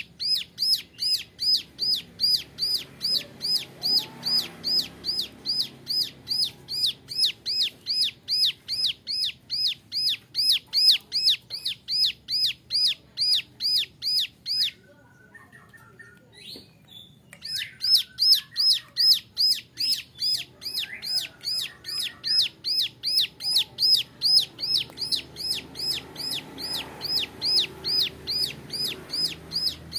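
Young ciblek gunung, a prinia, singing a rapid-fire 'nembak' series of sharp, hooked high notes, about three a second, with a pause of about three seconds midway before it starts again.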